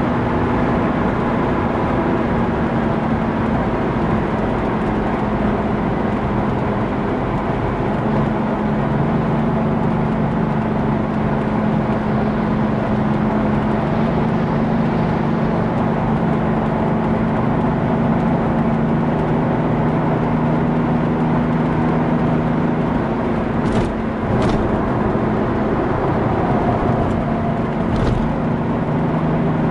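Mercedes-Benz W126 300 SDL's 3.0-litre six-cylinder turbodiesel cruising at Autobahn speed, heard from inside the cabin as a steady engine drone mixed with wind and tyre noise. A few brief clicks come late on.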